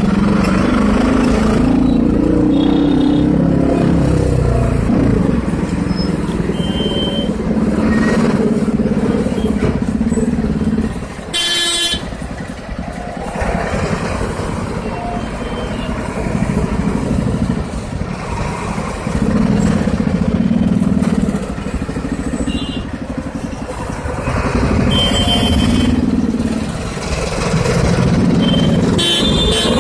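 Bajaj Pulsar 200NS single-cylinder engine running at low road speed, its note swelling and easing as the throttle is opened and closed, with road and wind noise. Vehicle horns toot briefly several times, the loudest about twelve seconds in.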